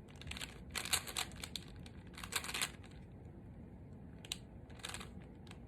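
Speed cube being turned quickly by hand, bursts of plastic clicking and clacking from the layers.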